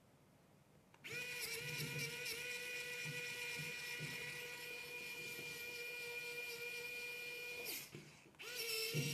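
Small electric precision screwdriver whining steadily as it drives the rocker-arm screws on a miniature V8 engine's valve gear. It starts about a second in, its pitch wavers briefly under load, then it stops and starts again near the end.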